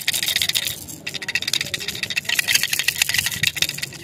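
Hand-held plastic toy rattle being shaken: a fast, dense stream of small plastic clicks that breaks off briefly about a second in, then resumes.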